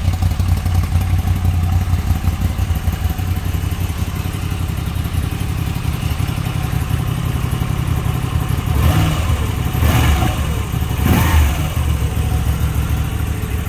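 Moto Guzzi V85 TT's air-cooled 853 cc transverse V-twin idling steadily in neutral, then blipped three times in quick succession near the end.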